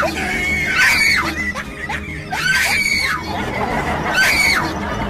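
High-pitched screams, three of them about a second and a half apart, each rising and then falling in pitch, over steady background music.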